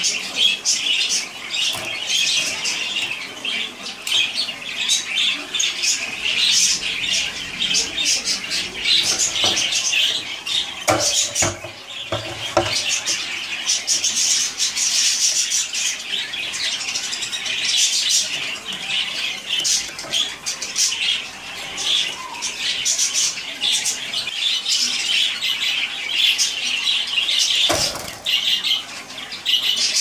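Caged domestic canaries chirping and singing in quick, high-pitched trills without a break, with a few knocks near the middle and near the end.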